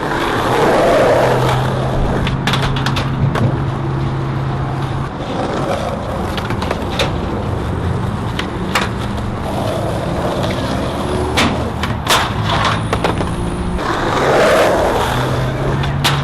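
Skateboard wheels rolling with a steady low hum that swells and fades, broken by several sharp clacks of the board.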